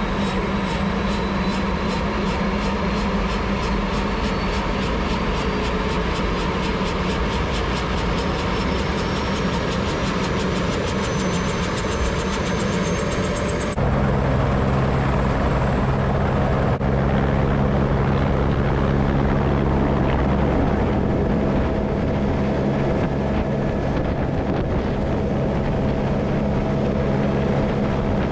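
Airbus H125 single-engine turboshaft helicopter running at power for a vertical takeoff: rotor thrum with a turbine whine that rises slowly in pitch through the first half. About halfway through the sound changes abruptly to a steadier, slightly louder drone with a low hum.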